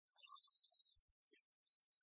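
Near silence, with faint scattered high-pitched chirps and a couple of soft low ticks.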